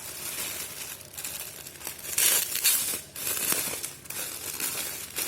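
Packaging crinkling and rustling as a parcel is opened and handled, in irregular bursts, loudest a little over two seconds in.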